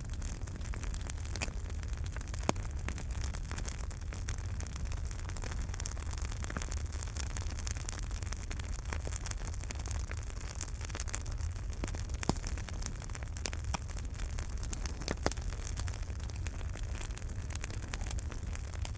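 Wood fire burning in a fireplace: a steady low rumble and hiss with frequent small crackles and a few louder pops.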